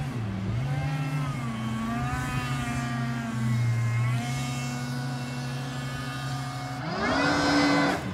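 Mini jet boat's engine running out on the water, its pitch rising and falling. About seven seconds in it revs sharply up to its loudest.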